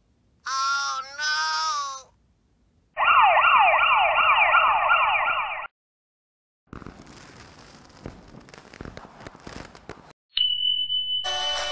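A run of sound effects. First comes a short pitched cartoon 'oh no' effect in two parts, falling in pitch at the end. Then a police siren wails in fast repeated sweeps for nearly three seconds, followed by a stretch of quieter crackly noise, a steady high beep, and music starting near the end.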